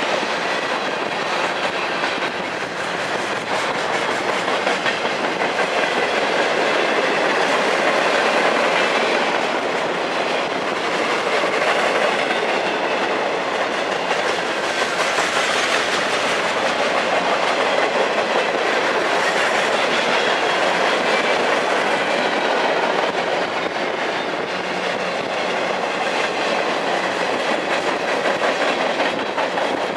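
Freight train cars rolling steadily past, their steel wheels running over the rails.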